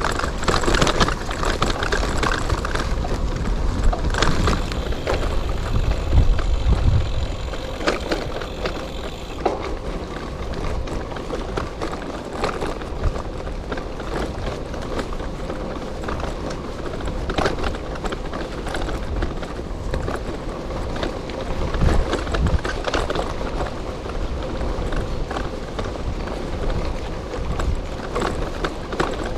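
Gravel bike riding over a rough off-road trail: tyres crunching over the surface, with the bike rattling and knocking over bumps, and wind rumbling on the microphone.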